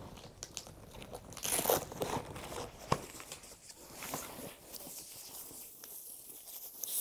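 Handling noise of a folded travel cot as its padded base board is lifted off and set aside: fabric rustling and scraping with scattered clicks and knocks from the frame, including one sharp click about three seconds in. It grows quieter in the last couple of seconds.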